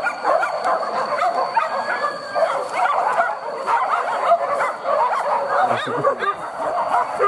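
Many hunting dogs yelping and barking at once, their high excited cries overlapping without a break.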